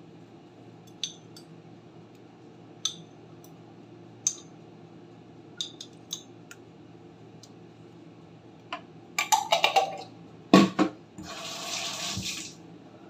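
Spoon clinking against a jar and a ceramic plate while a paste is spooned onto a fish, a few separate clicks, then a fork spreading it: a quick run of clicks and scrapes, a loud knock, and a rasping scrape lasting about a second and a half near the end.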